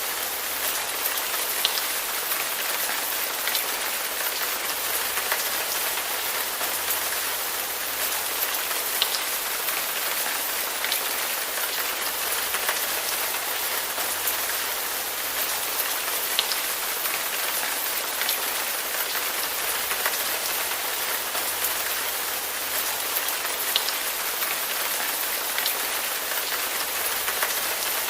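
Steady rain falling on a surface: an even hiss with scattered sharper drop ticks throughout.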